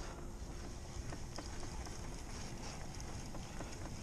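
Ambient sound aboard a fishing kayak on calm water: a steady low rush with scattered light ticks and knocks, and a faint steady hum over the first two seconds or so.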